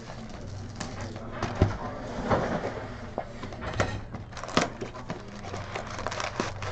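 Handling noise at a table: scattered sharp clicks and taps over a steady low hum.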